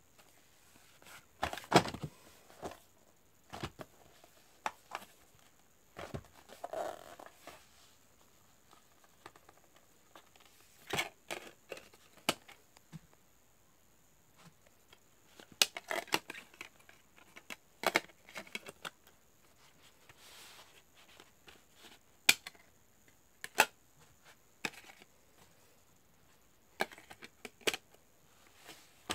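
Plastic DVD case being handled and opened: scattered clicks, taps and short rustles of the case and its disc trays.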